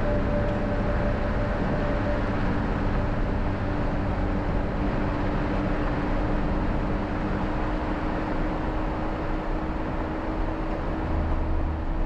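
A 4WD SUV driving on a dirt mountain road: steady engine and tyre noise with a low rumble.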